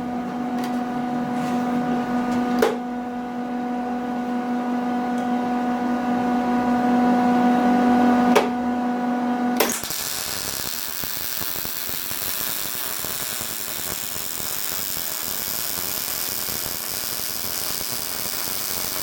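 Steel being arc-welded. A steady electrical hum with a couple of clicks, then about halfway through the welding arc strikes and a continuous crackling sizzle runs on as the weld bead is laid.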